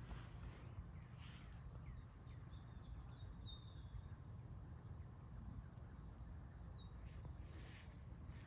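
Quiet pondside outdoor ambience: a steady low rumble with a few short, faint bird chirps scattered through it.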